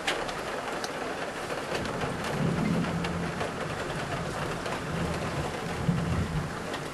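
Heavy rain mixed with hail pelting a window and its sill, with many short sharp taps. A low rumble swells through the middle and dies away near the end.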